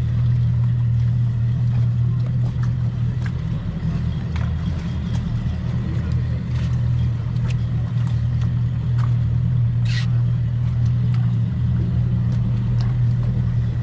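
Outboard boat motors idling with a steady low drone. A short sharp click about ten seconds in.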